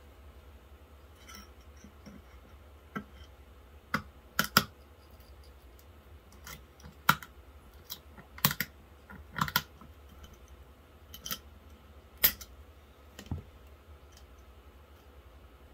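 Small cutters snipping the metal reinforcing mesh that sticks out of a plastic weld: about a dozen sharp clicks at irregular intervals, some in quick pairs, starting a few seconds in.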